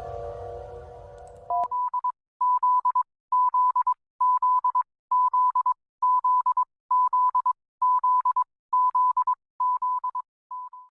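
Emergency alert system alarm: a single high beep tone sounding in short groups of rapid pulses, each group about half a second long, repeating roughly once a second about eleven times and then cutting off. At the start, the tail of a different alarm, a chord of several steady tones over a low rumble, fades out.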